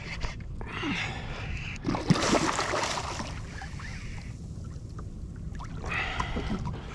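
Water splashing and sloshing against a plastic fishing kayak's hull in uneven bursts, over a steady low rumble of wind on the microphone.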